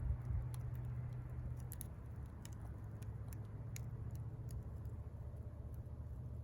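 Wood fire crackling: irregular sharp pops and snaps over a steady low hum.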